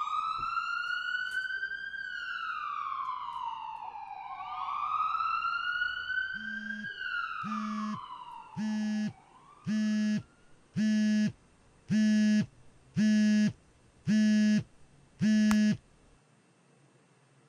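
A siren wailing up and down twice, fading out as a repeating alarm beep takes over. The beeps are a smartphone alarm: about eight short, evenly spaced beeps a little over a second apart, cut off near the end when a hand taps the phone to snooze it.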